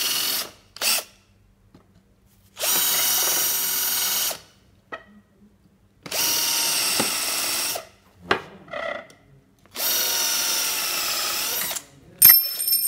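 Cordless drill running in four bursts of about two seconds each, drilling pilot holes into a wooden chair frame, with short pauses between bursts. Near the end a sharp metallic clink rings briefly.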